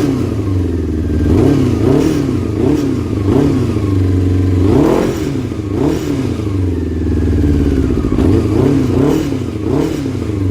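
Small sport motorcycle engine revved in repeated short throttle blips, its pitch rising and falling about ten times over a running idle. The owner says the carburetors need adjusting.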